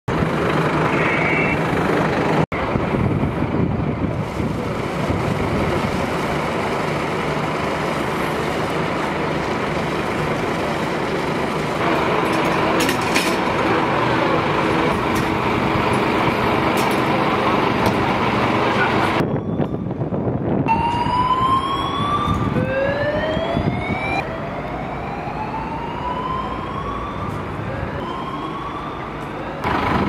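Fire engines running in the street, a steady loud rumbling noise. In the last third a siren whoops over and over, each tone rising for a second or two and then dropping back.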